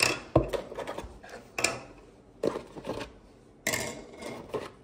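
Hard plastic parts and packaging being handled: a series of irregular knocks, taps and light clatter with some rustling.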